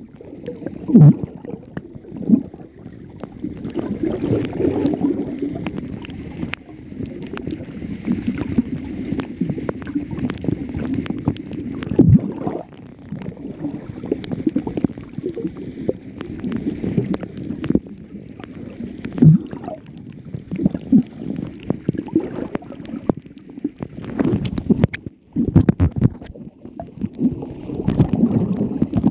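Muffled underwater sound of moving water picked up by a submerged camera: a low, uneven rumble and gurgle with scattered clicks and knocks.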